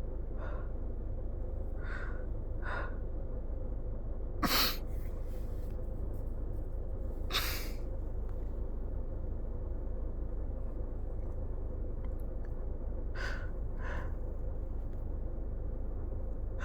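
A person with a cold in a sneezing fit: three short gasping in-breaths, then a sneeze about four and a half seconds in and a second sneeze about three seconds later. Two more gasping breaths come near the end, over a steady low hum.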